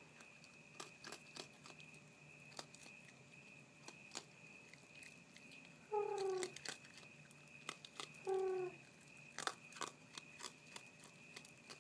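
Raccoon crunching dry kibble pellets, a run of sharp, irregular crunches. Two short hums break in about six and eight seconds in.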